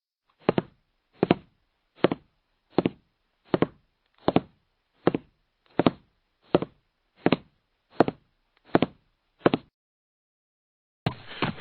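A steady series of short knocks, about thirteen of them, one every three-quarters of a second, each a quick double tap. They stop before a hiss of noise starts near the end.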